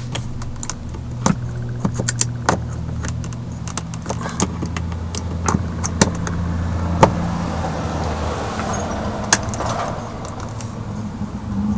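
Screwdriver work on a car's door trim panel: irregular light clicks and metallic taps as the screws under the door are taken out, over a steady low hum.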